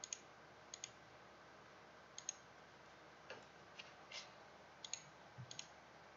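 Faint computer mouse clicks, about a dozen scattered over a few seconds and several coming in quick pairs, over near-silent room tone.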